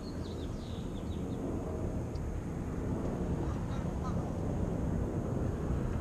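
Steady low outdoor background rumble, with a few faint, high, short bird chirps in the first second or so.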